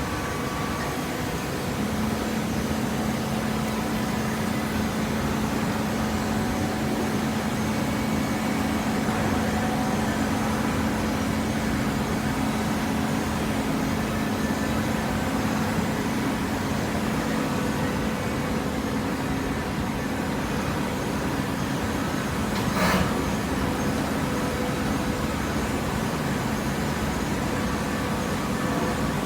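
Hydraulic waste-paper baler running with a steady mechanical hum, and a single sharp knock about 23 seconds in.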